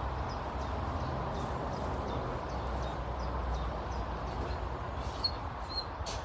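Garden birds giving a few short, high chirps near the end, over a steady rumble and hiss.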